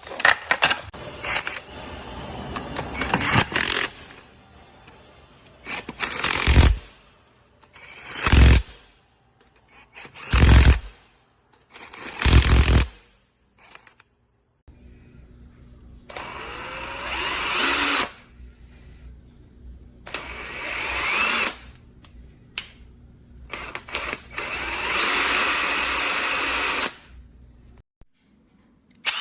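Cordless impact wrench running on and off: four short bursts of about a second each, then three longer runs of two to three seconds.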